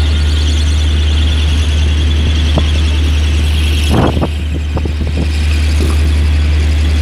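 Steady low drone of a ship's machinery heard on deck, with a thin high whine over it. A few sharp knocks come about four to five seconds in.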